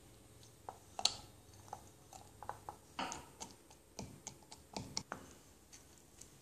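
Cashew nuts and almonds being picked up and set down, making a string of light clicks and knocks against a ceramic plate and a wooden jar. The sharpest click comes about a second in, and more follow in quick clusters.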